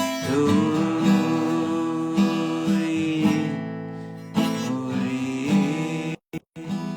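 Acoustic guitar strumming and picking chords, with a held note that bends up at the start. The sound drops out twice, very briefly, near the end.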